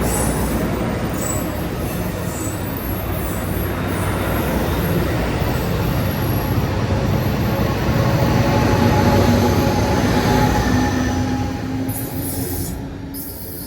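A train rolling along the rails with a steady rumble and faint high wheel squeals, dropping off a little near the end.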